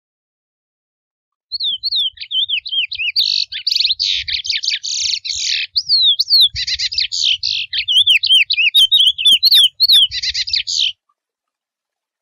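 Male chestnut-bellied seed finch (curió) singing its wild mateiro-type song: one long unbroken phrase of quick whistled down-slurs mixed with buzzy notes. It starts about a second and a half in and stops abruptly about a second before the end.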